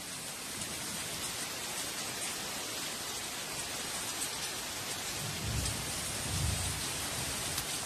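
Tropical downpour: steady, heavy rain falling on rainforest, with two low rumbles of thunder about two-thirds of the way through.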